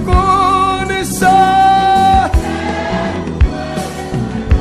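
Gospel song: long held sung notes over a band, with a steady beat of low drum hits.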